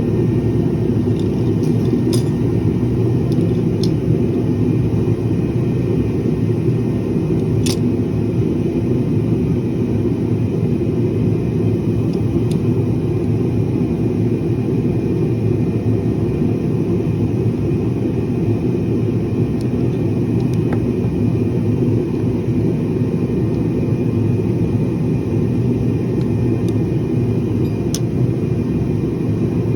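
A steady low rumble runs throughout, with a few sharp clicks scattered through it.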